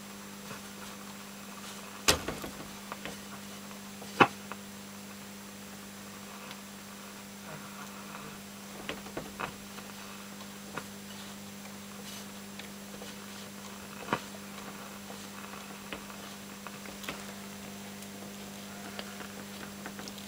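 AWA Radiola 467MA four-valve mantel radio switched on and giving a steady low hum, with hardly any station coming through. A few sharp clicks cut in, the loudest about two and four seconds in.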